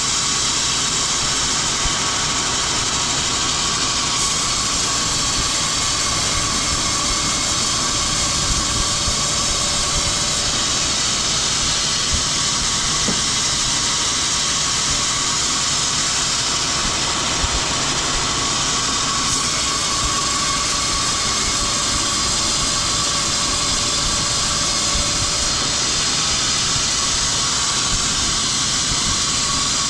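Woodworking machinery running steadily: an even, loud hiss with a thin steady tone through it, unchanging throughout.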